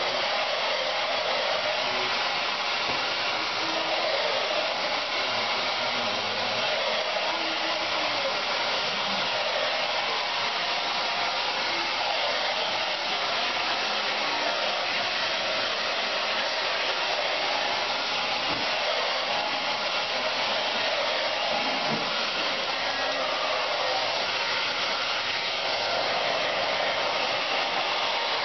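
Handheld hair dryer blowing steadily without a break, a continuous even airflow noise.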